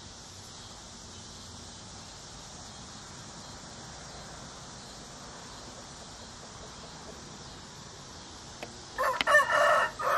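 Rooster crowing loudly near the end, a few clipped notes followed by a long held note that falls slightly at its tail, over a steady background hiss.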